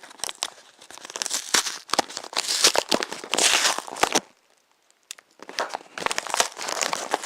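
Packaging being crinkled and torn open by hand to get at a boxed RAM kit, with a dense run of crackling and ripping that stops for about a second partway through, then starts again.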